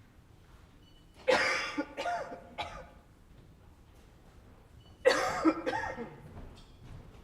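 A man's dry, barking cough: two short fits of about three coughs each, the first about a second in and the second about five seconds in.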